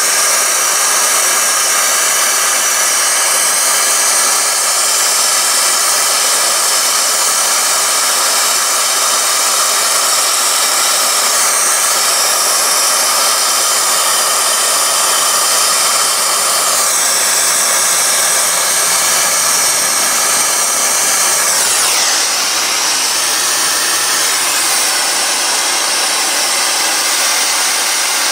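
Handheld gas torch burning with a steady hissing rush as it heats a copper battery-cable lug so the solder flows inside. Late on, the sound dips in pitch once and comes back.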